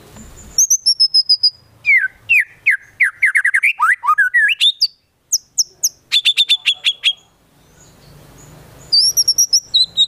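White-rumped shama singing a loud, varied song. It runs through clear falling whistles, fast sweeping trills and quick series of repeated sharp notes, with a short break near the middle and a quieter pause before a final burst of notes. This is the 'gacor' full song of a shama that carries mimicked fill-in phrases (isian) from konin and kinoi birds.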